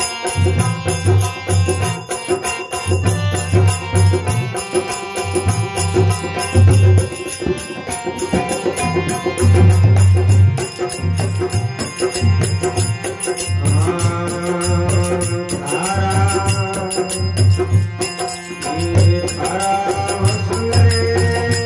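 Indian folk devotional music: a dholak beats a steady rhythm under a held, reedy melody, with small jingling percussion ticking quickly on top.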